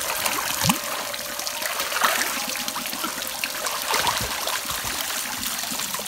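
Water trickling and splashing into a natural rock pool, with splashes from a person swimming in it.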